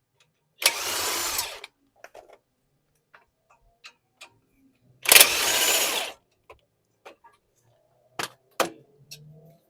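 Power tool running in two bursts of about a second each, spinning out the two 17 mm brake caliper bracket bolts. Near the end come two sharp metallic clicks.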